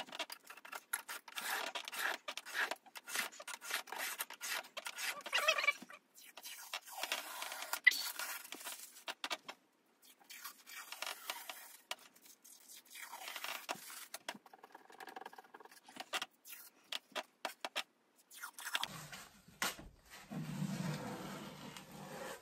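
A metal scraper working damp top-layer wallpaper off a wall, the paper soaked with warm water instead of steamed: rapid, irregular scraping and tearing strokes with short pauses between runs.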